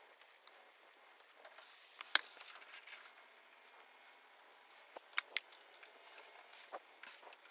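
Faint clicks and taps of a metal fork and chopsticks handling food into a wooden bento box. There is one sharp tick about two seconds in, a quick cluster of three around five seconds, and a softer one near the end.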